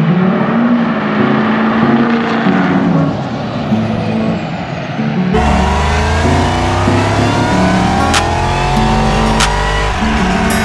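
Intro music over vehicle sound. In the first half a truck's engine runs under the music. From about five seconds in, a supercharged V8 winds up through its revs on a dyno, a deep steady rumble under a rising whine.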